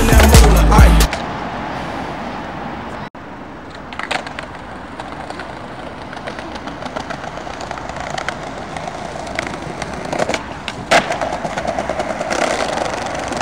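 A rap backing track cuts off about a second in, leaving open street sound with a few sharp clacks. Near the end a skateboard rolls over paving tiles.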